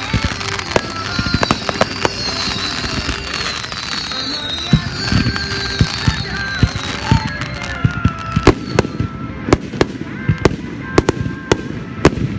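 Fireworks display: rapid sharp bangs and pops of bursting shells, coming thicker and louder in the second half.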